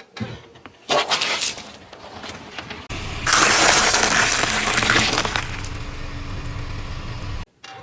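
Objects being crushed under a car's tyre, cracking and breaking, with a short crunch about a second in. A loud, sustained crackling crunch follows in the middle, then a low steady rumble that cuts off suddenly near the end.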